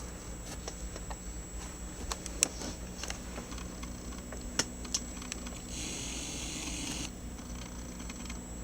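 Scattered light clicks and taps over a low steady hum, with a brief hiss lasting about a second just before the seven-second mark.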